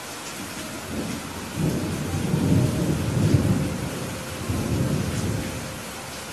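A long roll of thunder over steady rain. The rumble swells about a second in, is loudest in the middle and dies away near the end, with the hiss of falling rain throughout.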